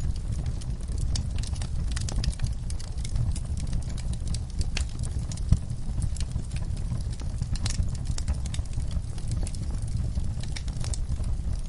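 Fire burning in a fireplace: a steady low rumble with many irregular crackles and pops.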